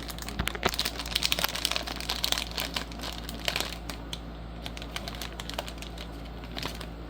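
Crinkling and rustling of blind-box packaging being opened by hand: a dense run of small crackles, busiest in the first half or so.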